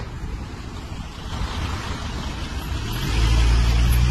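A large motor vehicle drives past close by with road noise, its steady engine drone building up and loudest near the end.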